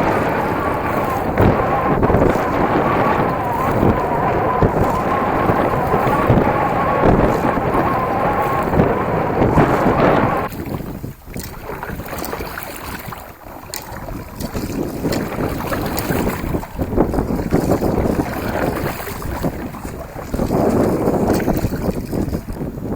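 Wind buffeting the microphone with a wavering hum. It is heavy for about the first ten seconds, then drops off suddenly to lighter gusts.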